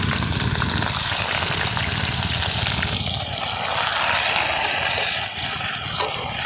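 Sliced onions sizzling in hot mustard oil in a steel kadhai over a wood fire as they go in and are stirred with a ladle, over a steady low rumble.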